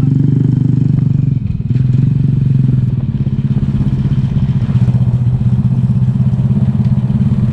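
Motorcycle engine running steadily while riding, with a short dip in its sound about one and a half seconds in before it picks up again.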